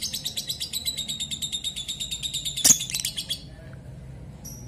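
Lovebird chattering in a long, rapid trill (the 'ngekek' song lovebird keepers prize), a fast even run of sharp high notes that stops about three and a half seconds in, with one sharp click near its end. A few short, separate high chirps follow near the end.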